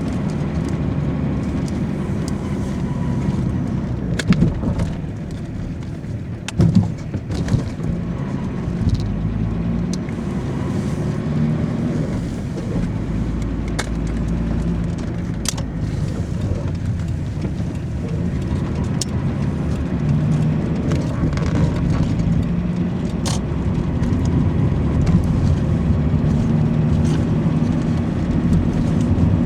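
Car being driven: a steady low engine and road noise, with a few sharp knocks about four and seven seconds in.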